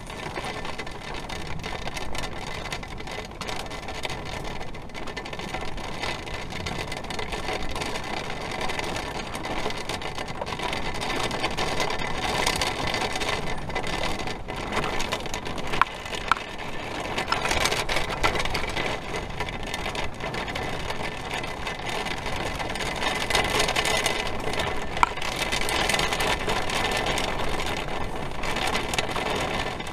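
Heavy rain and wind beating on an RV in a thunderstorm, heard from inside. The rain grows heavier about halfway through, with a few sharp taps on the shell.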